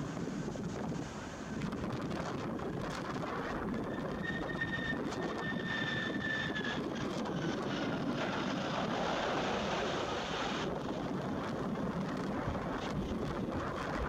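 Boeing 767-300 jet engines at low power on final approach and flaring over the runway: a steady rush, with a faint high whine that falls slightly between about four and seven seconds in. Gusty wind buffets the microphone throughout.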